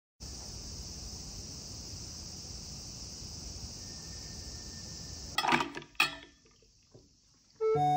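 Insects chirring steadily in a high, even drone. About five and a half seconds in, a stainless steel bowl clanks twice against the glass bowl it sits in. Piano music starts near the end.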